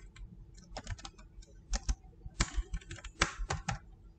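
Typing on a computer keyboard: irregular keystroke clicks, some in quick runs of several keys.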